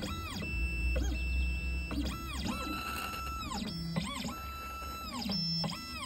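Electronic key-cutting machine's stepper motors whining as the carriage moves. Each move is a tone that rises in pitch, holds steady, then falls away, repeating every second or so over a low motor hum.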